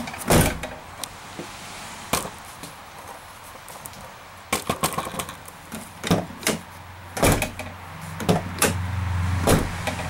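A 1995 Dodge Ram pickup's door being worked by its newly installed outside door handle as a test. There is a series of handle and latch clicks with heavier door knocks, the strongest just after the start and a little after halfway.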